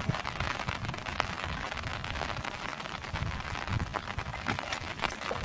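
Hands and rubber boots working in shallow muddy water, with splashing, sloshing and squelching and many small sharp splashes.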